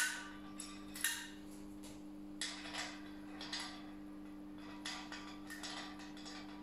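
Light metallic clicks and clinks, about ten of them at irregular intervals, as a small nut is fitted and turned by hand on the threaded steel spindle on top of a cable dispenser.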